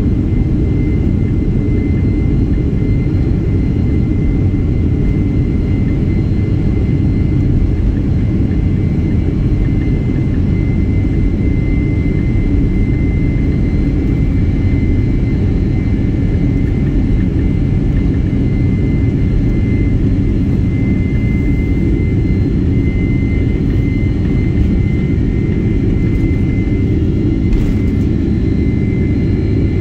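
Boeing 767-300ER's jet engines at takeoff thrust during the takeoff roll, heard inside the cabin beside the wing: a steady loud low rumble with a thin, even high whine over it.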